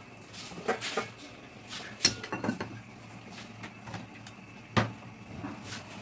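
Aluminium pot and its metal lid clinking and clanking as the lid is handled and set on the pot, several separate knocks with the loudest near the end.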